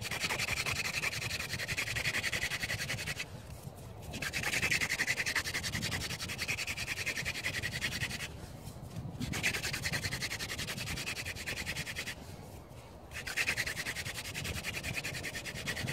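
Hand-drill friction fire-lighting: a wooden spindle spun back and forth between the palms, its tip drilling into a piece of chaga fungus, making a steady rubbing sound. The rubbing stops briefly three times, about 3, 8 and 12 seconds in, as the hands go back to the top of the spindle.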